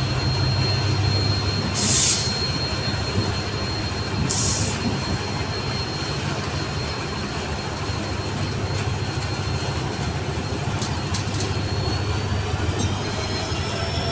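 Indian Railways second-class passenger coaches rolling slowly past: a steady rumble of wheels on the rails with a faint, thin, high squeal held throughout. Two short hisses come about two and four seconds in.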